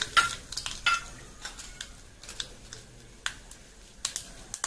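Mustard seeds spluttering in hot coconut oil in an aluminium kadai: irregular sharp pops and crackles over a faint sizzle, with two louder metallic clicks in the first second and sparser pops after that.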